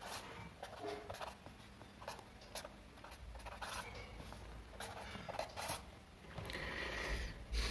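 Pen scratching on paper in short strokes, drawing arrows, circles and tick marks, with a longer stroke near the end.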